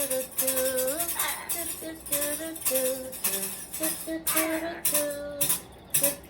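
Music: a melody of held notes stepping up and down over a rattling, shaker-like percussion.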